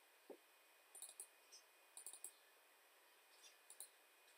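Faint computer mouse clicks over near silence, several of them in quick pairs like double-clicks.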